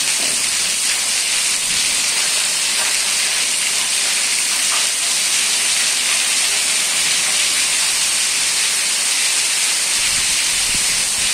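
Heavy tropical downpour: a steady hiss of rain pouring down onto the street and roofs. A low rumble joins near the end.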